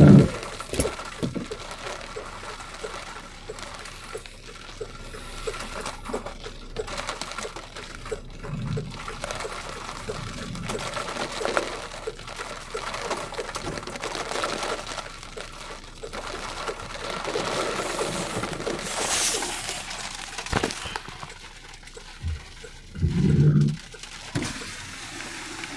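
Heavy rain on a car's roof and windows, heard from inside the cabin as a steady wash of noise with many small ticks of drops. A brief, louder low sound stands out near the end.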